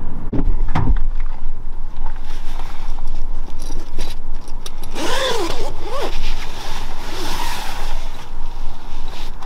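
Zip on a padded fabric rifle bag being pulled open, with the bag's fabric scraping, over a steady low rumble. There are a couple of dull thumps near the start.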